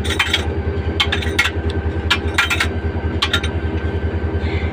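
A 1500 HP 2600-series diesel locomotive engine idles with a steady, pulsing low throb. Over it come repeated sharp metal clinks and knocks from hand work on the coupling gear between the locomotive and the next vehicle.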